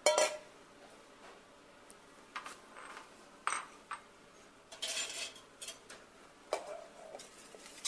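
Stainless steel mixing bowls and utensils clinking and knocking as they are handled and set down on a kitchen counter: a loud ringing knock right at the start, then scattered clinks, with a small cluster about five seconds in.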